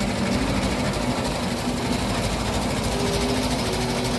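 Engine running at a steady speed, heard close up in its open engine bay, with a fast, even mechanical ticking over its hum.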